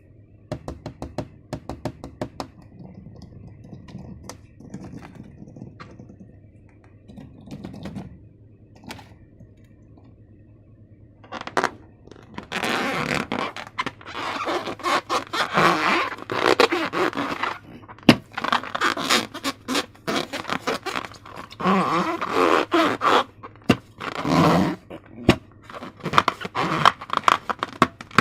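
Slime being worked by hand: soft clicks and rustling at first, then from about halfway loud, irregular, repeated scraping and squelching.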